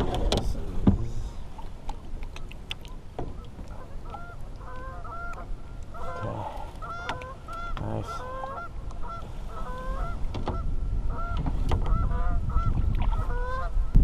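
Several geese honking: many short calls in quick succession, starting about four seconds in, over a low wind rumble.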